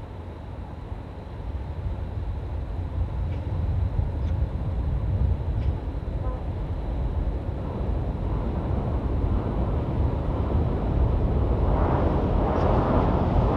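Low rumble of a Seoul Subway Line 1 electric train at the Hangang Railway Bridge, growing steadily louder as the train comes on, with a rising rushing noise over it toward the end.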